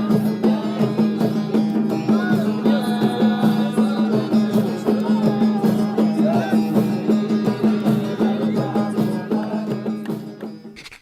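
Middle Eastern folk music with a steady low drone, quick hand percussion and a wavering melody line, fading out near the end.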